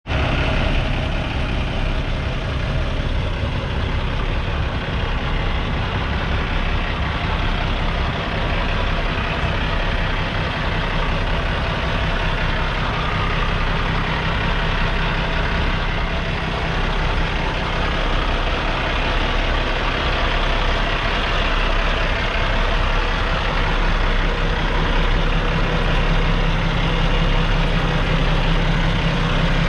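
Large diesel truck engine idling steadily, a low even hum with no revving.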